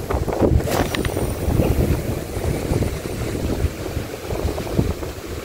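Wind buffeting the microphone in rough, uneven gusts over the wash of the sea, with a few light clicks about a second in.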